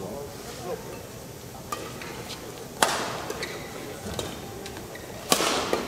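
Badminton rally: rackets striking the shuttlecock, four sharp hits about a second and a half apart, the second and fourth loudest, each ringing briefly in a large hall over a low crowd murmur.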